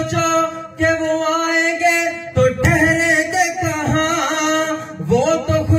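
Male voice singing a naat into a hand-held microphone, unaccompanied, drawing out long held notes that bend up and down in pitch.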